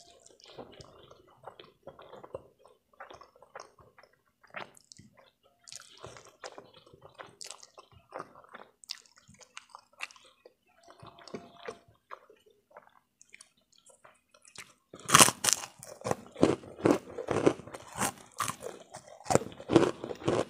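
Close-miked eating sounds: soft chewing and wet mouth clicks on a mouthful of saucy instant noodles, then, about fifteen seconds in, loud crisp crunching of a white krupuk cracker being bitten and chewed, several crunches a second.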